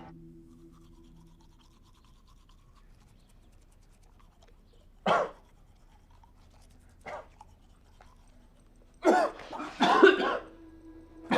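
A person coughing: one hard cough about five seconds in, a smaller one two seconds later, then a fit of several coughs near the end.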